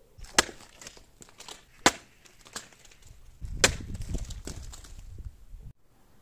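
Katana blade chopping through a head of cabbage: three sharp cutting strikes about a second and a half apart, with smaller crackling snaps of leaves between them. After the last strike comes a low rumble that cuts off suddenly near the end.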